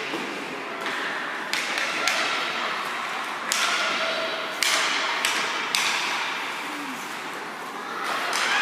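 Ice hockey game sounds: a series of sharp knocks and hissing scrapes a second or so apart, typical of skate blades cutting the ice and sticks and puck clacking, over a steady rink background.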